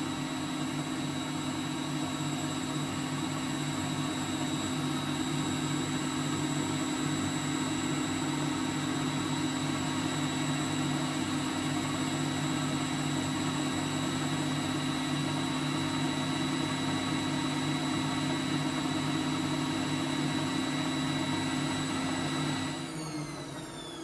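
Motor of a homemade magnetic heater, spinning neodymium magnets around a copper water pipe, running with a steady whine. Near the end it slows down, its pitch falling.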